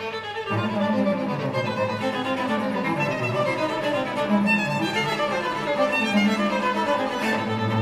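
Background orchestral music led by violin over lower bowed strings, a busy run of changing notes.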